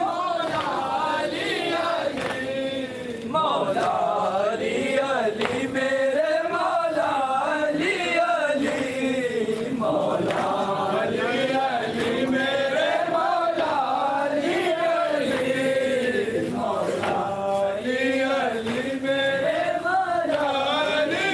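Men's voices chanting a noha, a mournful Shia lament, in long phrases whose pitch rises and falls.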